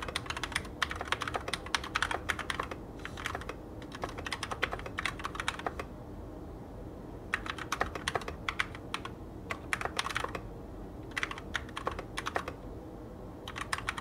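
Typing on a Keychron K2 Aluminum mechanical keyboard: quick runs of key clicks and clacks, broken by short pauses between bursts.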